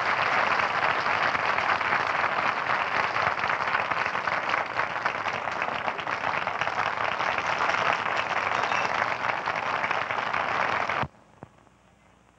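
Audience applauding steadily, a dense crackle of many hands clapping; it cuts off abruptly about eleven seconds in, leaving near silence.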